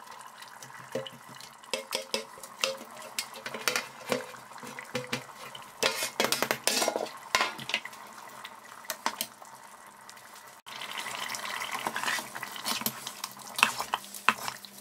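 A spoon scraping thick eggplant purée into a steel pot of pepper sauce and stirring it in, with irregular clinks and scrapes of the spoon against the pot and the wet mass. About two-thirds of the way in a steady hiss comes in under the stirring.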